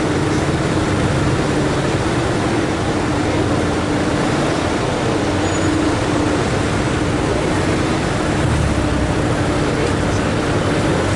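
Street traffic noise from a line of emergency vehicles, their engines running at idle and low speed, with a steady low hum.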